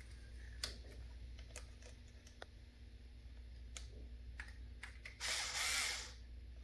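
Small clicks and taps from handling a soldering iron and its tip, then about five seconds in a small cordless power screwdriver runs briefly, for about a second.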